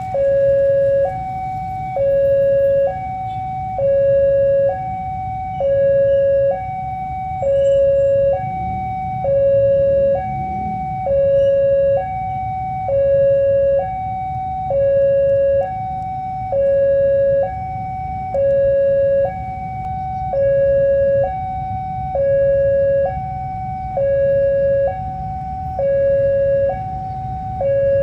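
Railway level-crossing warning alarm: an electronic signal alternating steadily between a lower and a higher tone, each held for just under a second. It sounds over a low rumble of waiting traffic and signals that a train is approaching.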